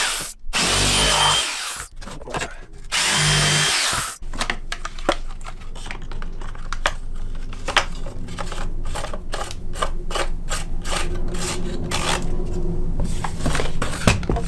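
Electric jigsaw cutting a poplar board: two short bursts of the motor, then a longer cut with the motor running steadily and the blade clattering quickly and irregularly through the wood.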